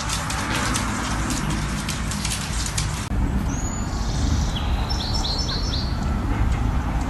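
A rapid crackle of sharp clicks, then, after an abrupt change, a steady low rumble with a few short high chirps, including a quick run of four.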